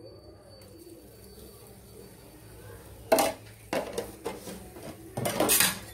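Metal utensils clinking against cookware: a sharp clink about three seconds in, another shortly after, and a longer clatter near the end.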